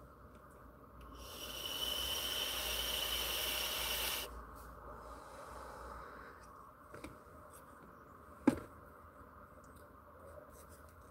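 A person's long, breathy hiss of air lasting about three seconds, with a faint whistle in it, stopping abruptly, then a softer breath out. A single sharp click comes later.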